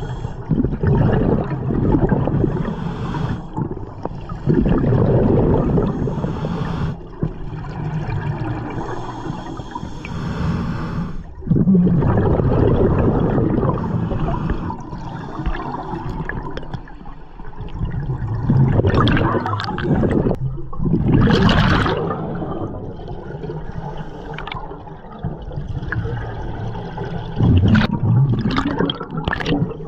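Scuba diver breathing through a regulator underwater: gurgling rushes of exhaled bubbles in surges of a few seconds, broken by short pauses, with a few sharper hissing bursts in the second half.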